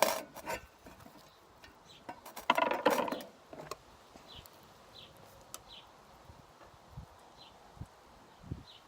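Small birds chirping faintly in short repeated calls, with a few sharp clicks at the start and a brief loud rustle or scrape about two and a half seconds in.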